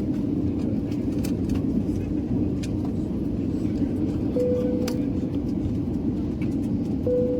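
Steady low rumble inside a vehicle's cabin, with scattered light clicks and two short single-tone beeps about three seconds apart.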